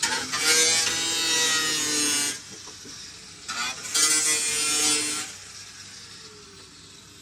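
Angle grinder with a cut-off wheel cutting through the car's sheet-metal floor pan, whining as it bites. It cuts in two bursts: about two seconds at the start, then about a second more from four seconds in.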